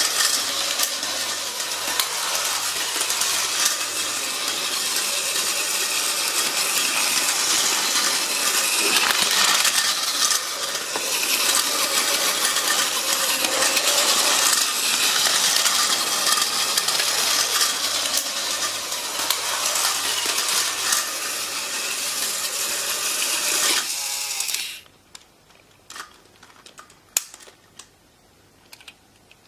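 Battery-powered Plarail toy train running on plastic track: a steady whirring clatter from its small motor and wheels. The clatter cuts off suddenly near the end, leaving a few light clicks.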